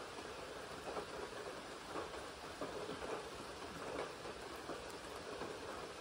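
Steady rain falling on a lake and the vegetation around it, with irregular louder drops close by, roughly once a second.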